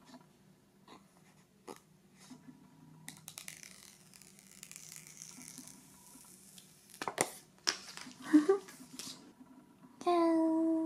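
Protective paper wrap being peeled off the screen of a new iPhone 12 Pro: soft rustling and a long hissy peel, then a few sharp crackles about seven seconds in. Near the end comes a short, loud, high squeal of delight.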